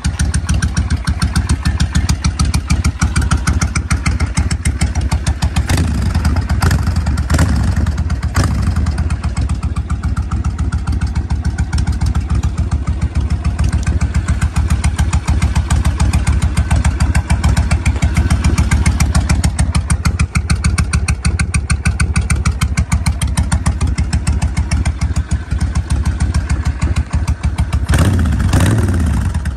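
Suzuki Intruder VS 1400 custom bobber's V-twin engine idling, deep and loud, with a rapid even exhaust pulse. It is given a few brief blips of throttle about six to eight seconds in and a stronger rev near the end.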